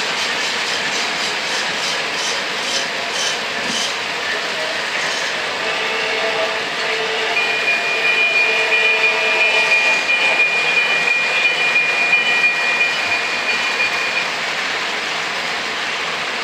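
O gauge Lionel model trains rolling on three-rail track, the freight cars clicking over the rail joints. About five seconds in, a passing Lionel Atlantic steam locomotive's onboard sound system chuffs and plays a long steady whistle for about seven seconds.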